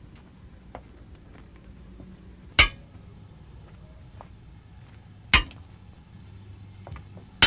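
Wheel tapper's hammer striking railway wheels with the brakes on: three sharp metallic clinks, each with a brief ring, about three seconds apart, the last at the very end. Each wheel is tapped to test it for defects by its ring. A faint low hum runs underneath.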